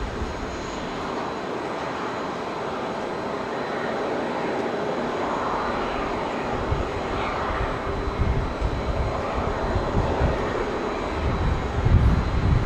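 Boeing 787-9's twin turbofan engines at takeoff power as the jet begins its takeoff roll, heard from a distance: a rushing jet roar that grows steadily louder. An uneven low rumble builds in the second half.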